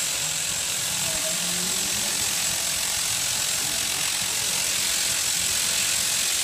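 Electric sheep shears running steadily: a continuous mechanical buzz with a steady high whine.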